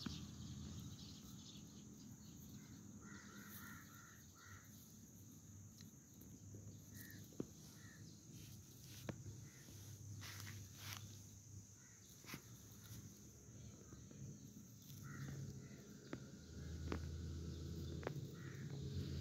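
Faint ambience: distant birds give a few short calls in small groups, over a low steady hum and scattered faint clicks.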